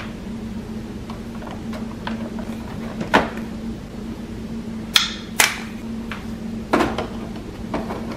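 Sharp plastic clicks and knocks as an ink bottle is pulled from an HP Smart Tank printer's ink tank and the tank cap and cover are snapped shut, louder ones coming from about three seconds in, over a steady low hum.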